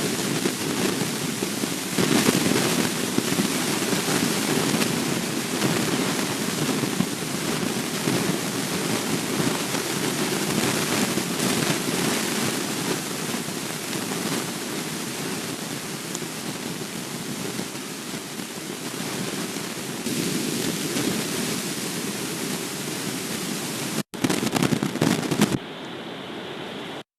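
Storm wind blowing across an outdoor nest-camera microphone: a steady rushing noise that swells and eases in gusts every few seconds. It breaks off briefly near the end and comes back thinner before it stops.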